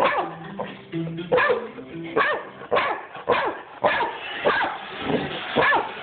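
Dog barking over and over, one sharp bark every half second to a second, with a few held musical tones underneath in the first two seconds.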